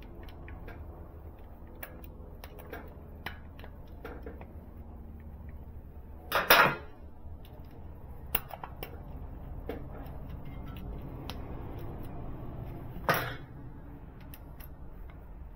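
Light metal clicks and clinks of a screwdriver and parts being worked at the oil filter cap on a Honda Monkey 125's engine cover, as the filter, spring and cap go back in. Two louder, longer clatters come about six and a half and thirteen seconds in, over a low steady hum.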